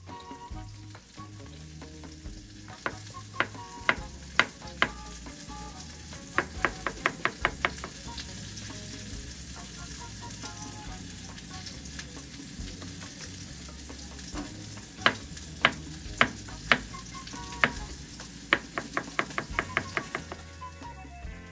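Kitchen knife slicing mushrooms on a plastic cutting board: sharp taps of the blade striking the board, single cuts and quick runs of about six taps a second, coming in four spells. A steady hiss runs underneath.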